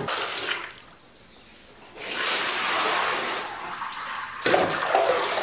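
Soy milk being scooped and poured, a steady splashing pour that lasts a couple of seconds, with a fresh splash starting near the end.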